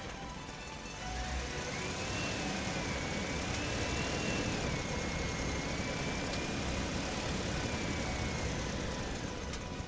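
WPL B24 RC truck's small electric motor and gears whining as it drives. The whine starts about a second in and rises and falls in pitch with the throttle, over a rough low rumble of the tyres on the dirt track.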